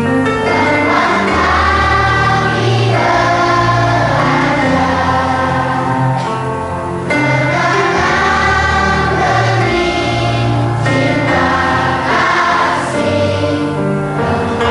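A group of voices singing a song together in chorus over instrumental accompaniment with a moving bass line.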